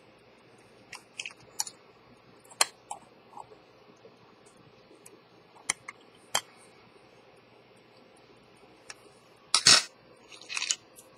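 Scattered light clicks and taps of a watchmaker's tool and fingers working on a pocket watch's hands and dial. Near the end come two louder, longer rustling knocks of handling.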